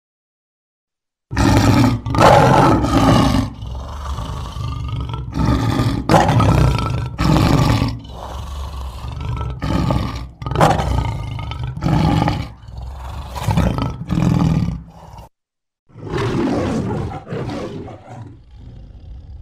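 Male lion roaring: a long series of deep, grunting roars, one every half second to a second, starting about a second in, with a short pause near the end.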